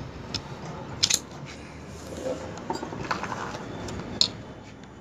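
Small metal clicks and scrapes of a steel tool and coil springs being worked into a Preet tractor's disc-brake actuator plate, with a few sharp clicks, the loudest about a second in and just after four seconds.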